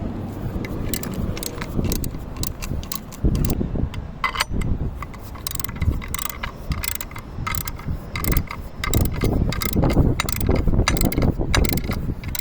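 Irregular mechanical clicking and clattering over a low rumble.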